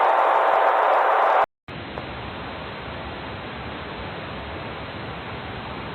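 Loud television static hiss that cuts out abruptly about a second and a half in. After a brief silence it returns as a quieter steady hiss.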